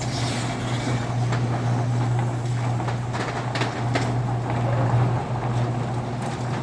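Garage door opener motor running with a steady hum as it drives two roll-up doors linked by a bar, with a few knocks and rattles from the doors around the middle.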